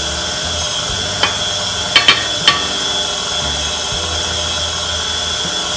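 KitchenAid stand mixer running steadily, its motor giving a constant hum with a steady high tone as the beater turns in the steel bowl. A few sharp clicks sound between about one and two and a half seconds in.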